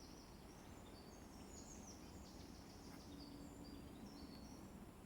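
Quiet outdoor ambience with birds chirping faintly, many short high notes.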